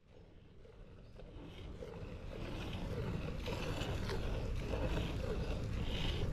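Milk squirting from a cow's teats into a partly filled steel pot during hand milking, a short hiss about once a second, over a low steady rumble of wind on the microphone. The sound fades in over the first two seconds.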